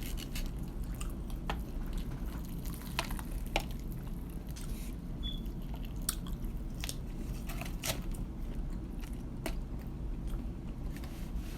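Close-up chewing and biting of KFC fried chicken: scattered small crunches and wet, squishy mouth sounds over a steady low hum.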